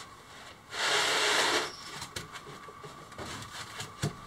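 A large plastic-cased lithium battery scraping for about a second as it is slid into place in a compartment, with a few light knocks as it is handled.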